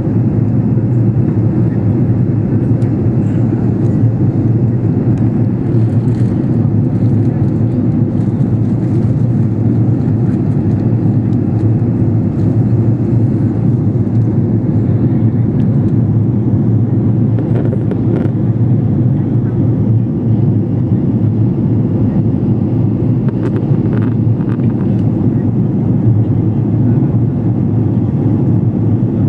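Steady cabin noise of an Airbus A330-300 airliner on descent: a low, even rumble of engines and airflow heard inside the passenger cabin, unchanging in level.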